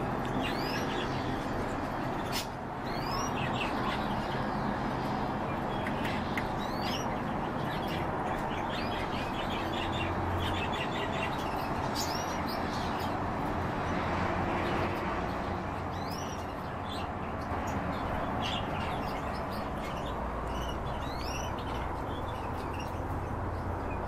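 European bee-eaters calling: scattered short rising chirps and a few rolling trills, over a steady background hiss.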